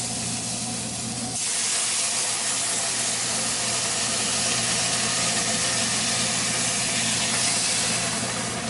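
Hot broth poured into a pot of rice just browned in hot oil, hissing and sizzling as it boils up in a cloud of steam. The hiss jumps much louder about a second and a half in and then holds steady.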